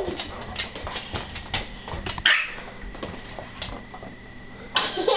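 A black Labrador moving about on a hardwood floor, with irregular light clicks and taps. A toddler starts laughing near the end.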